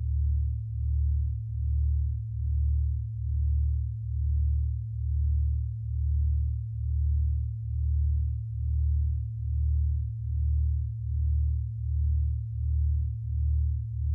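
Generative electronic sound piece of low, pure sine tones beating against each other. They make a slow, even pulse a little under twice a second, which quickens slightly near the end.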